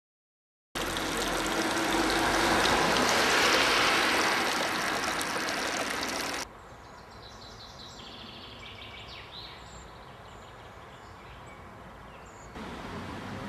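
Water jets of a stone fountain splashing steadily into its basin, starting abruptly about a second in and cutting off suddenly a little past halfway. Then a much quieter outdoor stretch with small birds chirping, before a louder steady rushing noise returns near the end.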